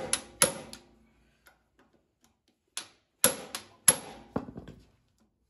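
Hammer blows on a hand impact driver, loosening the screws that hold a Massey Ferguson 35X rear brake drum. Sharp metallic strikes with a short ring: two right at the start, then a pause, then a run of about five strikes about three seconds in.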